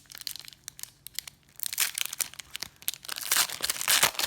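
Wrapper of a 1992-93 SkyBox basketball card pack being torn open and crinkled in irregular crackling spells, the loudest near the end.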